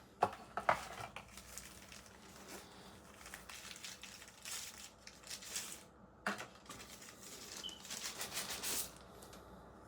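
Packaging crinkling and rustling as a folding knife is unwrapped and taken out of its box. A few sharp clicks come through, the loudest about six seconds in.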